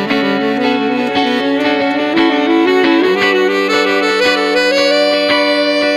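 Saxophone solo over an electric guitar's rhythmic chords, settling into a long held note about three seconds in.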